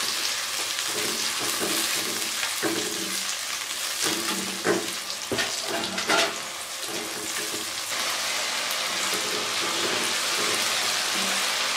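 Onions and a ginger-garlic-tomato paste sizzling as they fry in oil in a non-stick pan, stirred with a silicone spatula that scrapes and knocks against the pan a few times near the middle. This is the stage of frying the masala base until it is cooked through.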